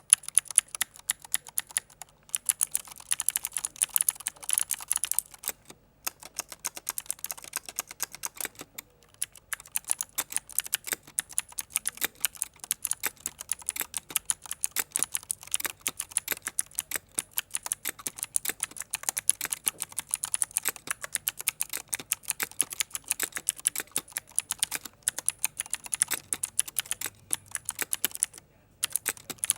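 Rapid typing on a mechanical keyboard with clicky Cherry MX Blue switches, each keystroke a sharp click. A towel sits under the keyboard to damp it. The typing runs dense and continuous, broken by a few brief pauses.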